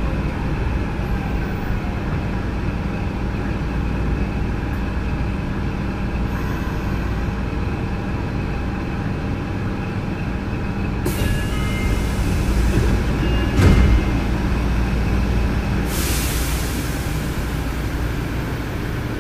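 Interior of a Nagoya Municipal Subway 2000 series train coming into a station: steady running noise with a loud air-conditioning hum. A hiss of air starts about 11 seconds in, a single clunk follows a couple of seconds later, and a louder burst of air hiss from the air brakes comes near the end.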